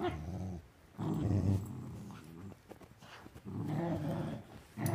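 Dog growling in play while tugging on a rope toy, in three bouts with short pauses between.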